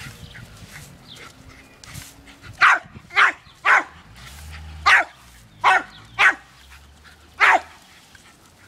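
Jack Russell terrier giving seven short, sharp barks, irregularly spaced, starting about two and a half seconds in: excited play barking at the water jet from a garden hose.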